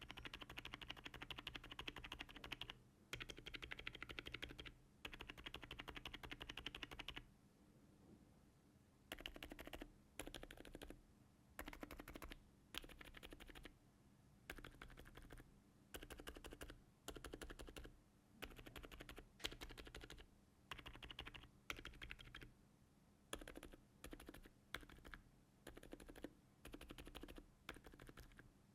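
Typing on a mechanical keyboard fitted with budget silent switches, damped keystrokes that are soft and muted. A fast continuous run of typing stops after about seven seconds, followed by a short pause, then repeated short bursts of keystrokes with brief gaps between them.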